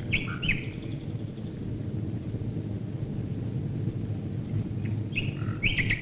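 A nightingale sings two short phrases of whistles and quick notes, one at the start and one about five seconds in. Under the song runs the steady low drone of a mass of bomber aircraft engines passing overhead.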